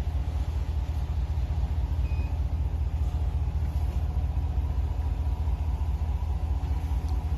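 Steady low rumble with a faint even hum, like an idling engine or running machinery. A single brief faint beep sounds about two seconds in.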